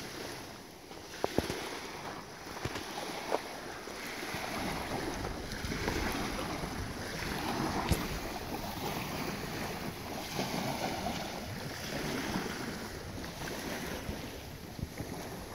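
Rushing wind noise that swells and fades, with a few sharp clicks in the first few seconds.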